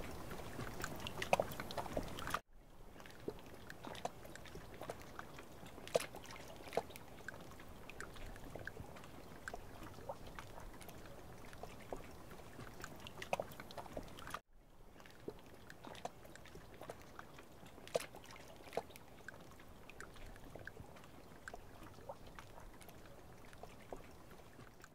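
Faint lakeside water sounds: scattered small drips and light splashes over a steady hiss. The sound cuts out briefly twice, about two and a half seconds in and again about halfway through.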